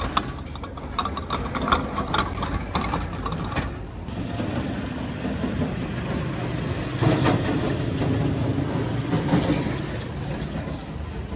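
Roadside traffic: motor vehicle engines running and passing, swelling about seven seconds in. Sharp clicks and clatter through the first few seconds.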